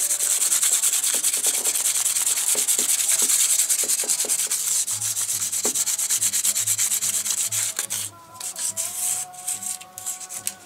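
Quick, even hand-rubbing strokes as a part of a Rock-ola 443 jukebox mechanism is buffed clean of wear. Steady scrubbing thins out into a few separate strokes about eight seconds in.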